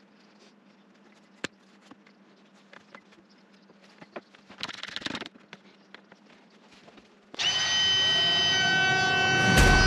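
Mostly quiet workshop room tone with a faint steady hum, a single sharp click about a second and a half in, and a short noisy rustle around five seconds. Music with sustained tones comes in loudly about seven seconds in.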